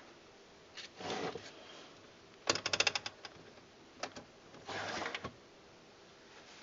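Handling noises: a short scraping rustle, then a quick rattle of about eight sharp clicks in half a second, a single click, and another short rustle.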